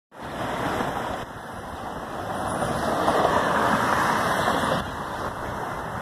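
Road traffic: a vehicle passing on the street, its tyre and engine noise swelling to a peak and then dropping away about five seconds in.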